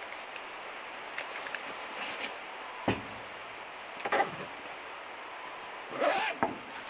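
Steady rain on the van's metal roof, with handling sounds of a soft cooler bag over it: rustling and a few short knocks as a wrapped item is taken out and laid on the wooden table, the loudest around the middle, then a short rasp of the pocket's zipper being pulled shut near the end.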